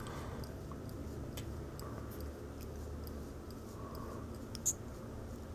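Faint clicks and rubbing of a plastic mascara cap being unscrewed and pulled off its tube, with a slightly louder click near the end, over a low room hum.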